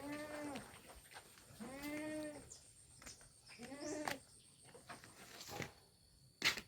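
An animal calls three times, each a short cry that rises and falls in pitch. A sharp click near the end is the loudest sound.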